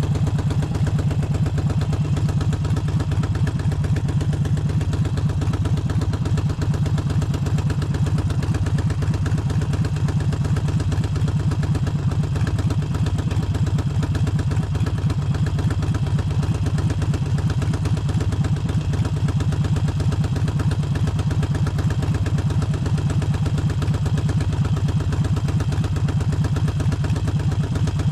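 Harley-Davidson Forty-Eight's air-cooled 1200 cc V-twin running steadily at an unchanging engine speed, with its uneven firing pulse.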